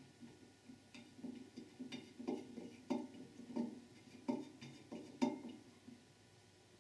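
Faint, irregular light metallic clicks, two or three a second, as a steel valve body bolt is turned by hand into the threaded end plug of an accumulator bore in a Ford E4OD/4R100 transmission valve body.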